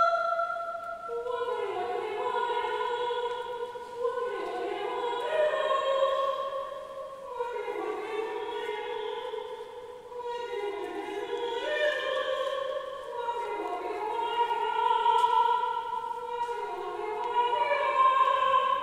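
Chamber choir singing a cappella: several voices hold chords and slide from one pitch to the next, in phrases a few seconds long. The sound carries the long reverberation of a large stone abbey church.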